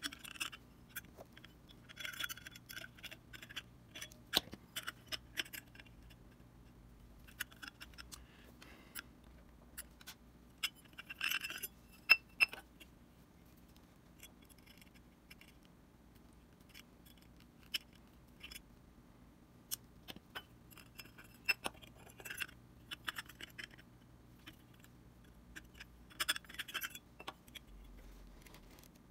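Small metal parts and hand tools of a vintage speedometer being handled on a workbench: light clicks, clinks and scrapes in scattered clusters with pauses between, over a faint steady hum.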